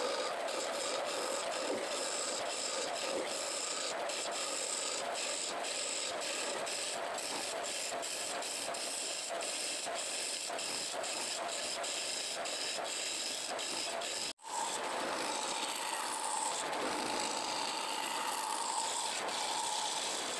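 A turning gouge cutting into a spinning block of cumaru wood on a wood lathe: a steady scraping hiss from the tool on the wood, over the hum of the lathe's motor, with regular clicks in the first part. The sound breaks off for an instant about two-thirds of the way through, then carries on.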